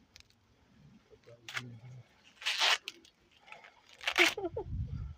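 Sweet corn leaves and husks rustling and tearing as ears are pulled off the stalks: a few short rips, the longest and loudest about two and a half seconds in, then handling noise near the end.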